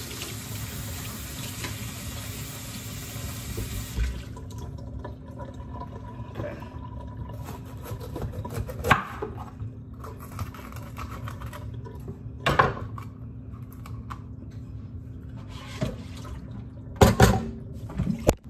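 Kitchen tap running as a green bell pepper is rinsed under it, the water stopping about four seconds in. Then a knife cutting the pepper on a wooden cutting board, with a few sharp knocks of the blade on the board.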